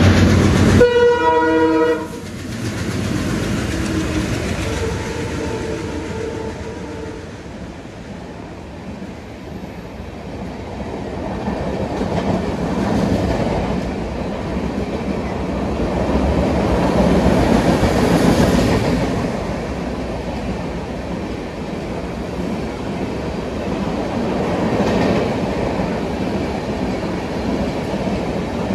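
Horn of a diesel express train passing at high speed, sounding loudly as the locomotives go by and cutting off about two seconds in, with a fainter horn note a few seconds later. Then the coaches rush past with a steady rumble and wheel clatter that swells and fades.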